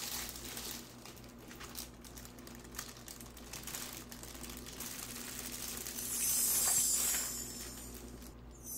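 Plastic bag crinkling and rustling as braised tofu and noodles are tipped out of it into a disposable bowl, with small scattered crackles and a louder rustle about six seconds in.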